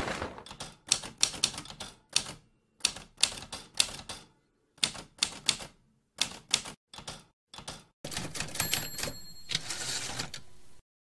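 Manual typewriter keys striking the paper in quick irregular bursts, letter by letter, for about eight seconds. This is followed by nearly three seconds of steadier mechanical noise that cuts off suddenly.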